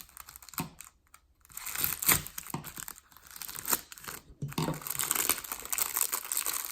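Shipping packaging being torn open and crinkled by hand: irregular rustling, scratching and tearing with small clicks, a short pause about a second in, then steadier crinkling through the second half.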